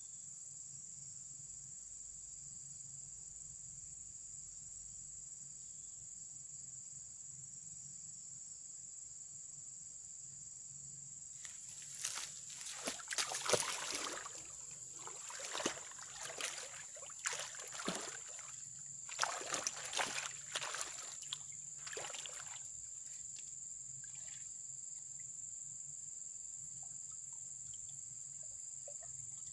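Water in a shallow ditch splashing and sloshing in an irregular run of bursts for about ten seconds, starting around twelve seconds in, over a steady high-pitched buzz of insects.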